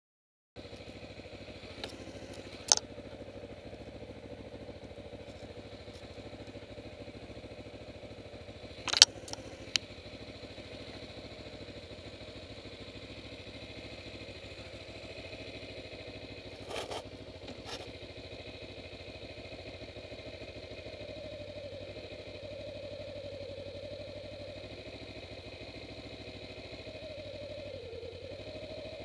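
Kawasaki Ninja 250R's parallel-twin engine running at a fairly steady speed, its pitch wavering a little in the second half. A few sharp clicks or knocks cut through, the loudest about nine seconds in.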